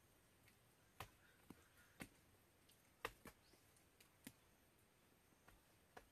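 Handfuls of wet mud slapped and pressed onto a log wall: about eight short, sharp slaps at uneven intervals, the loudest about three seconds in.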